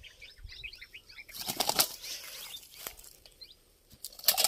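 A freshly landed tiger snakehead thrashing and flapping its body, in two short rustling bouts: one about a second and a half in and one near the end.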